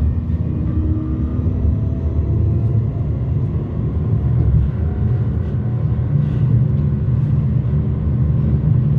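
Tram running between stops, heard from inside the car: a steady low rumble of motors and wheels on the rails.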